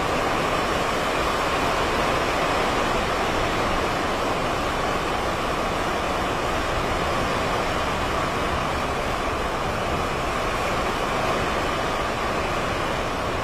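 Hurricane wind blowing steadily through palm trees and over open water: a constant rushing noise with a low, uneven rumble underneath.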